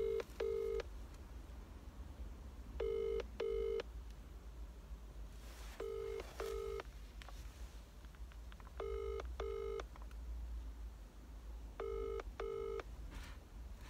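UK telephone ringing tone heard over a phone's speakerphone: a double ring repeating every three seconds, five times, as the dialled call rings unanswered.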